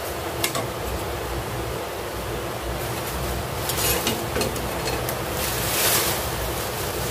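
Heavy rain falling steadily, a continuous hiss, with a few brief clinks and scrapes of a utensil against a cooking pot.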